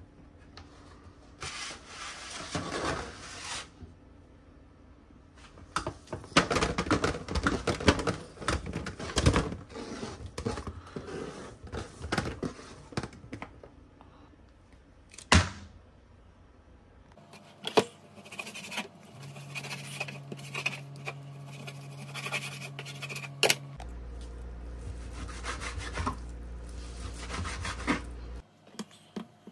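Kitchen prep handling noise: sliced kielbasa rounds being scraped and dropped into an aluminium foil pan with a run of irregular clicks and rubs, one sharp knock midway, then a knife sawing through raw bacon on a plastic cutting board. A steady low hum joins in the second half.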